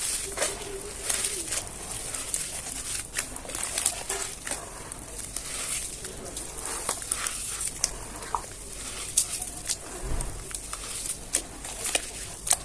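Dry chunks of cement and sand crumbling and being crushed by hand: irregular crisp crunches and crackles with a gritty hiss. Pigeons coo softly in the background.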